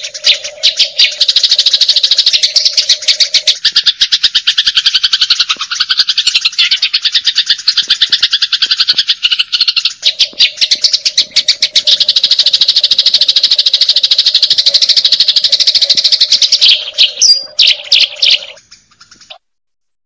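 Eurasian tree sparrows chirping: dense, rapid, high-pitched chattering calls that go on without a break and stop about a second before the end.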